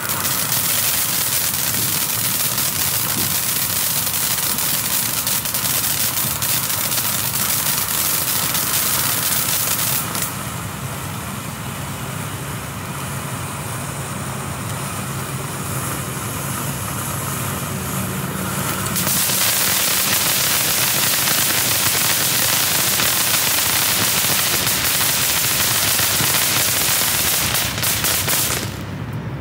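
Black Cat 'Close Encounters' ground fountain firework burning: a continuous loud hiss of spraying sparks with dense crackling. It eases off for several seconds in the middle, builds up again, and dies away near the end.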